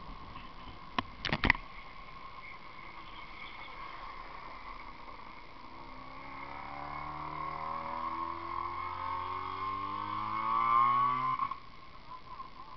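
A motor vehicle's engine pulls up behind, its pitch rising and getting louder for about six seconds before cutting off suddenly. A few sharp knocks come about a second in.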